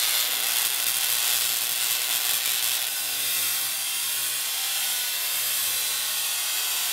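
Tesla coil firing, throwing spark streamers off its spherical topload: a steady hiss with a low hum underneath.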